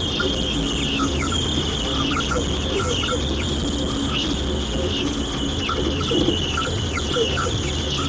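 Radio receiver putting out an unidentified signal: a continuous chirping, insect-like noise over static, with short repeated blips and a steady low hum underneath.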